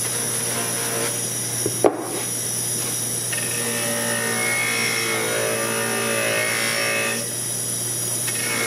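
Bench grinder running with a cloth buffing wheel, polishing a steel axe head pressed against it: a steady motor hum, with a short knock just before two seconds in. From about three to seven seconds in, the head bears on the wheel and adds a rubbing whine over the hum.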